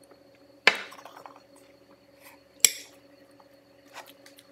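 Tableware clinking on a table: two sharp knocks of glass and cutlery against dishes, about two seconds apart, with a few softer clatters between. A faint steady hum runs underneath.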